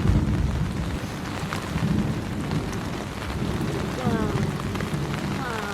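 Rain on a tent roof under low rolling thunder, the rumble loudest right at the start. Two short falling voice-like sounds come near the end.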